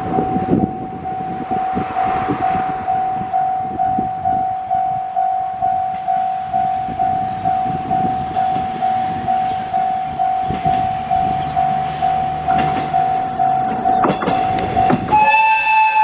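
Japanese level-crossing warning bell ringing in a steady, even rhythm, about two strikes a second, as a diesel railcar approaches with its engine hum building. About a second before the end the railcar sounds a loud horn blast over the bell.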